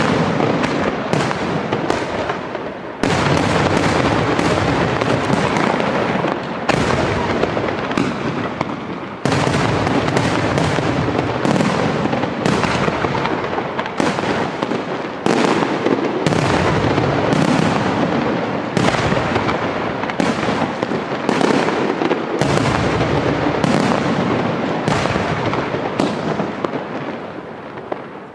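Aerial fireworks shells bursting in rapid succession: a dense barrage of loud bangs, often less than a second apart, with a continuous wash of sound between them. The barrage dies away near the end.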